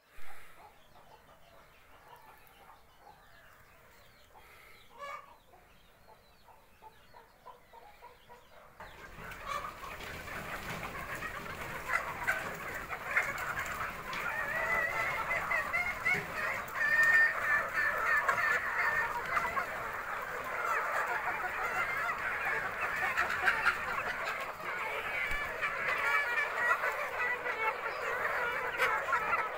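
Quiet at first; about nine seconds in, a large flock of hens starts calling, many voices at once, and grows louder as they crowd in to feed.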